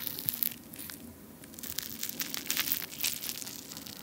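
Imitation crab stick (Crabmi) being torn apart by hand into fibrous shreds: a run of small, crisp crackling tears in several pulls.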